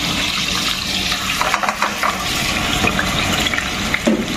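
Raw chicken pieces sizzling in hot oil in a stainless steel frying pan, just after going in: a steady sizzle with scattered crackles.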